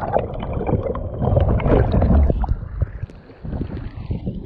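Seawater splashing and sloshing over a sea kayak's deck and the microphone, a jumble of low rumbling and knocks, turning muffled and gurgling about three seconds in.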